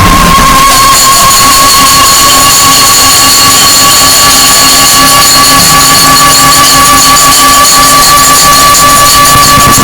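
Harsh noise music: a loud, dense wall of distorted noise with a steady piercing whine near the middle and shriller tones above it, fluttering rapidly up high. The low rumble drops away right at the start.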